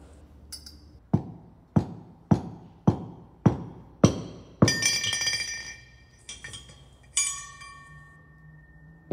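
Cessna 150 nose gear fork being worked like a slide hammer inside the oleo strut barrel: a run of seven sharp metal-on-metal clanks, about one every 0.6 s. A couple of further clanks follow, with the metal ringing after them.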